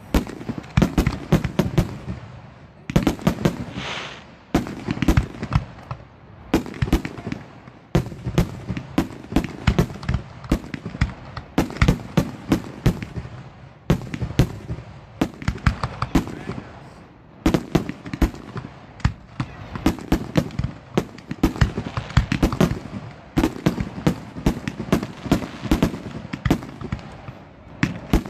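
Aerial fireworks bursting in a dense barrage: many sharp reports each second, in volleys of a few seconds separated by brief lulls.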